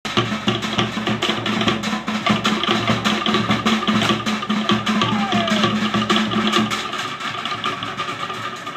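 Cook Islands drum ensemble playing a fast rhythm, with rapid strikes on wooden slit drums over deeper drums. The deep low layer drops out about seven seconds in, leaving the quicker wooden beats.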